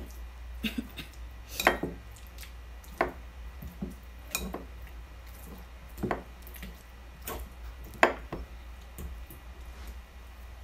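Boiled bananas being mashed in a glass bowl: a soft squishing, with an utensil knocking and clinking against the glass at irregular intervals of a second or so, two of the knocks sharper than the rest. A low steady hum lies underneath.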